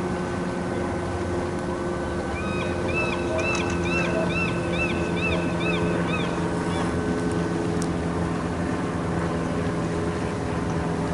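A steady motor hum runs throughout, the kind a boat engine makes at a harbour. About two seconds in, a bird gives a rapid series of about a dozen high, arched chirps lasting some four seconds.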